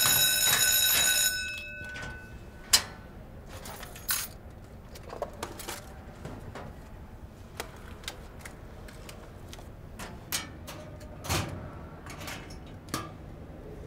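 An electric bell rings loudly for about a second and cuts off. Then come scattered metallic clicks, rattles and a heavier clank near the end as a steel school locker's combination lock and door are worked.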